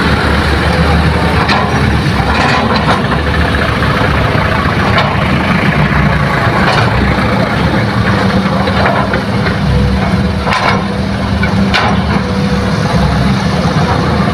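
Diesel engines of Hitachi hydraulic excavators and dump trucks running steadily, with a few short, sharp knocks scattered through.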